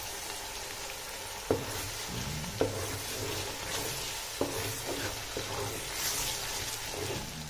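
Puréed tomatoes sizzling as they go into hot oil in a large aluminium pot, stirred with a steel spoon that clinks against the pot about five times.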